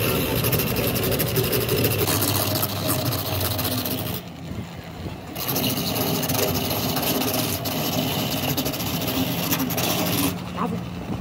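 Handheld rotary grinder running as its disc buffs the torn rubber sidewall of a large tire, a steady motor whine with a grinding rasp. It lets up for about a second a few seconds in and again near the end, as the grinder comes off the rubber.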